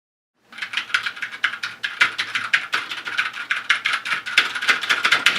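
Rapid typing on a mechanical keyboard: a fast, dense run of key clacks starting about half a second in.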